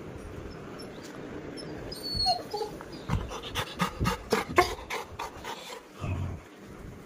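Dog panting in quick, even breaths, about three or four a second, for a couple of seconds in the middle, with a few brief whimpers just before.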